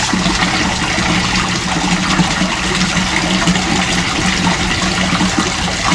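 Water pouring and splashing steadily into a koi pond from the outflow of its pump-fed top filters, which aerates the water, with a steady low hum underneath.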